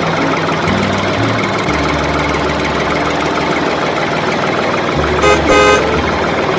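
Steady, dense, rattling engine sound, with two short horn toots a little after five seconds in.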